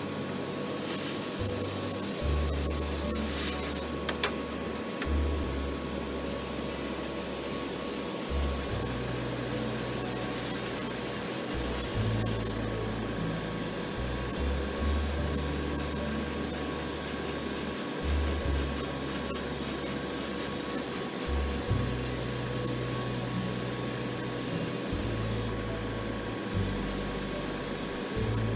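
Airbrush spraying paint in a steady hiss, stopping briefly about four seconds in, about thirteen seconds in, and again near the end as the trigger is let off.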